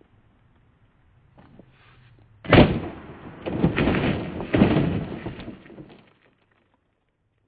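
A television being smashed: a sudden loud crash about two and a half seconds in, then a noisy run of further crashes with two more loud peaks, dying away after about three and a half seconds.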